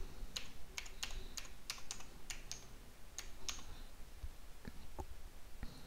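Computer keyboard being typed on: a quick run of about a dozen keystrokes over the first three and a half seconds, then a few softer scattered clicks.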